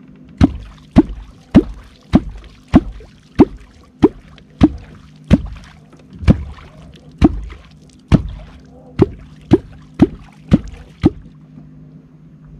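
Catfish clonk (clonc) being struck into the river water about seventeen times, a stroke every half second or so, each a short plop, to call wels catfish up to the lure; the strokes stop about eleven seconds in. A steady low hum runs underneath.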